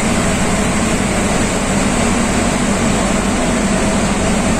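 Steady engine and road noise of a moving vehicle, heard from inside it, with a constant low hum.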